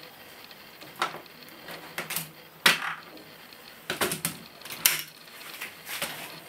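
Irregular sharp plastic clicks and clacks from a studless LEGO Technic model of the 8479 Barcode Truck as it is pushed by hand over the road's gear racks: its gears engage and the lifter arm picks up a LEGO tire and drops it into the cage. There are about half a dozen clicks, the loudest a clack a little under three seconds in.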